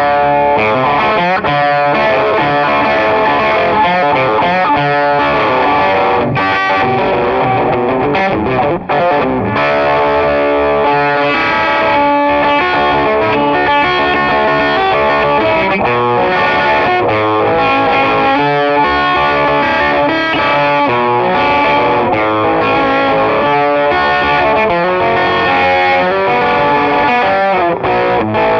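Electric guitar played through a StewMac Ghost Drive, a Klon-type overdrive pedal, set for a lot of gain with a darker, less trebly tone: a continuous run of distorted, overdriven notes, with a brief break about nine seconds in.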